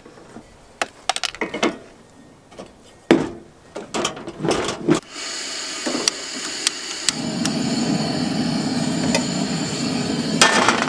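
Gas camp stove being lit: scattered clicks and knocks as it is handled, then gas hissing from about five seconds in, and the burner flame burning with a steady rush from about seven seconds in. A sharp metal clank near the end.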